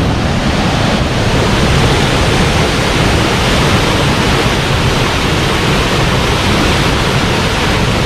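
Steady rush of a tall waterfall in heavy flow, crashing into the pool below.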